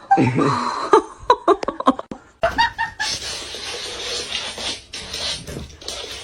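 A person laughing in short bursts, followed by about three seconds of steady hiss-like noise.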